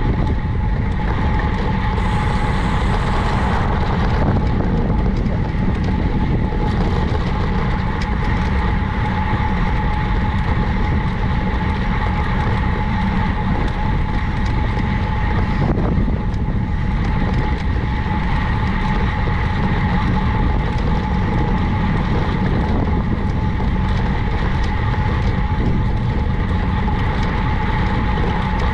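Wind rushing over the microphone and tyre noise of a road bike riding steadily along, with a constant high hum running through it.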